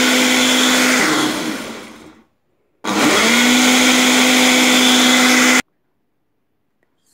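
Ninja blender motor blending fruit juice. It winds down and stops about two seconds in, then starts again, speeding up to a steady hum, and cuts off suddenly near the end.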